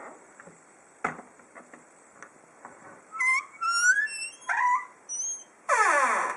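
Creaking door hinges squeaking. There is a light click about a second in, then a run of short high squeaks, some rising in pitch, and near the end a loud squeak that slides down in pitch.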